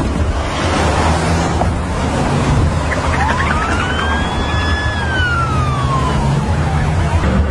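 Police siren giving one slow wail, rising about three seconds in, holding, then falling away, over a steady low rumble.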